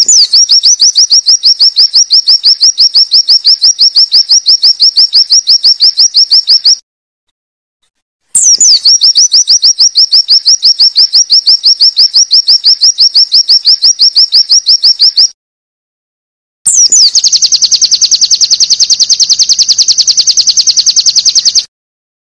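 A white-eye (pleci) giving long runs of rapid, high 'wit wit' notes, about seven a second, each a quick downward sweep. It comes in three runs, each cut off abruptly by a silence; the last run is faster and denser.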